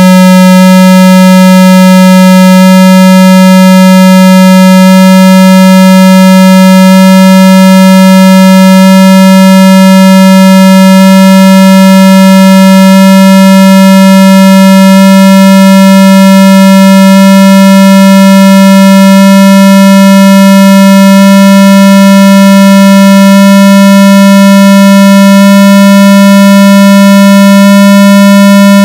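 A loud, steady electronic test tone from a car-audio judging disc, held on one low pitch throughout, with a buzzy, square-wave-like edge.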